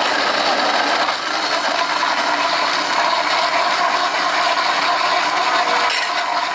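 Electric citrus juicer running steadily, a continuous whirring, rattling motor noise as orange halves are pressed on it.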